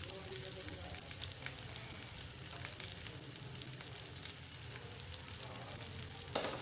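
Oil sizzling and crackling steadily, with many small pops, as egg-coated potato patties shallow-fry in a pan. A brief louder noise comes just before the end.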